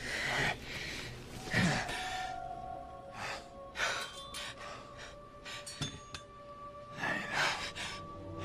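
Soft, sustained film-score music with several heavy, gasping breaths over it.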